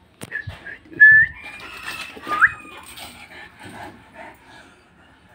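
A dog whining in several short high-pitched whimpers, some sliding upward in pitch, with a sharp click shortly after the start.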